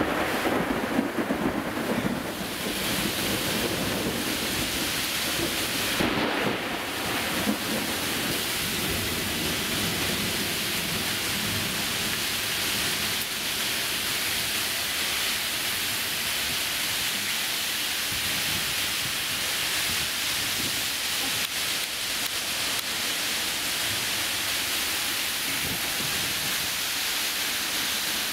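Heavy rain pouring down in a storm: a loud, steady, dense hiss, with a few louder surges near the start and again about six seconds in.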